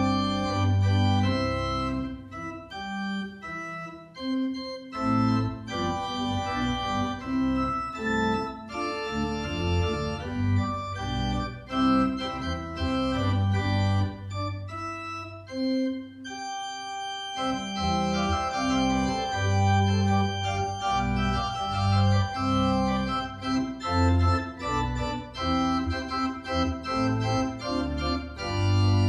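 Organ music: sustained chords over a deep pedal bass, with brief softer moments about four seconds and about sixteen seconds in.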